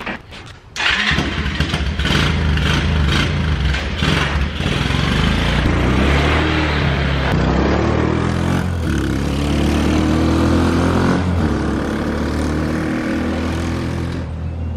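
A small vehicle engine starts up about a second in and runs loud, its pitch stepping up and down as it revs.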